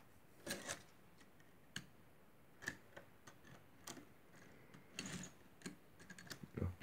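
Faint, scattered clicks and taps of small plastic toy train cars being handled and pushed by hand on a wooden surface, at uneven intervals, with a cluster of taps near the end.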